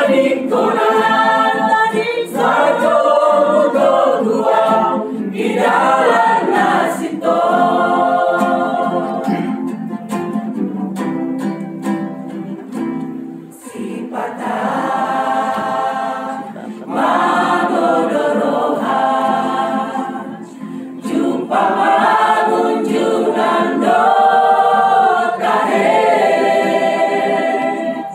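Mixed choir of men and women singing a praise song, in long held phrases with brief dips between them.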